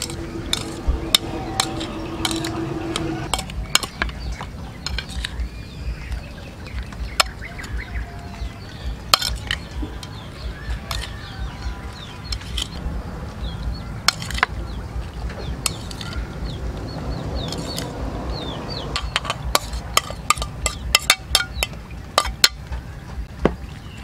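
Metal spoon clinking and scraping against a metal tray and bowl as chopped duck meat is spooned out and spread, in irregular sharp clicks over a steady low background rumble.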